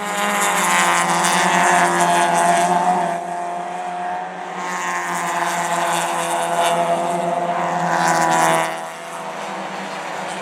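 Racing car engines at high revs going past on a circuit, two loud passes: one in the first three seconds and another from about four and a half to eight and a half seconds in. A steady low hum runs underneath.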